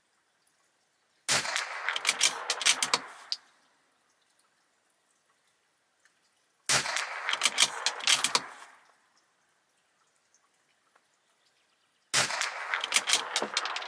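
Three .22LR rifle shots from a bolt-action Bergara B14R firing Eley Biathlon ammunition, about five seconds apart. Each starts with a sharp crack and trails off over a second or two of clicks and echo.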